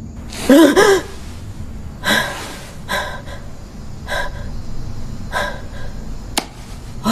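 A woman gasps sharply with a short voiced cry, then breathes hard in ragged breaths about once a second. A single sharp click comes near the end.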